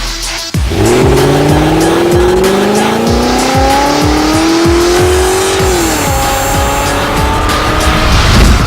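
A vehicle engine accelerating, its pitch climbing steadily for about five seconds, then dropping and holding, over music with a steady beat.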